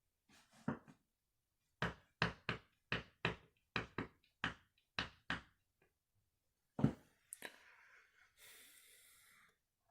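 Candy washing machine drum turning over slowly after its final spin, giving a run of about eleven even knocks, roughly three a second, then a single louder knock and a faint hiss.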